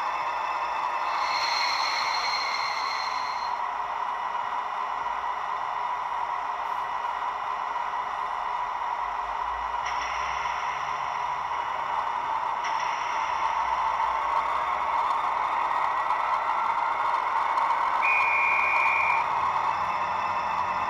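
HO-scale model of a DB class 225 diesel locomotive playing its digital sound decoder's diesel engine sound through its small built-in speaker as it runs slowly, a steady drone that grows louder in the second half. Several high steady tones sound over it, the last a short one of about a second near the end.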